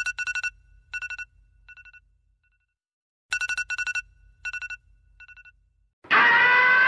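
Cartoon alarm clock bell ringing in quick bursts that fade away, twice, about three seconds apart. About six seconds in, a loud, long, high-pitched cartoon cat scream of fright cuts in.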